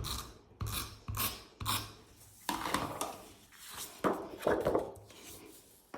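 Sheets of scrapbook paper being handled and pressed down onto a cardstock base: a series of short rustles and taps.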